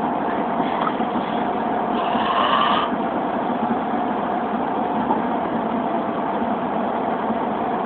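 Steady drone of a van's engine and road noise heard from inside the cabin, with a brief higher hiss about two seconds in.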